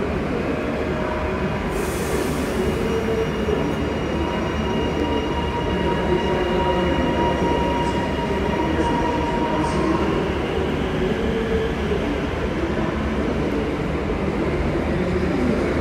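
Electric High Capacity Metro Train pulling out of the platform: a steady rumble of wheels on rail with a thin high whine, and a short hiss of air about two seconds in.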